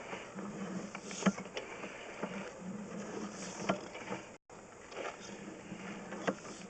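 Sewer inspection camera and its push cable being fed through a drain pipe: irregular clicks and knocks over a faint low hum, with a brief dropout to silence a little past halfway.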